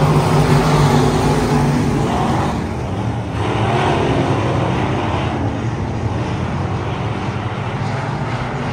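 Dirt-track race car engine running hard under power. It eases off briefly about three seconds in, then picks back up.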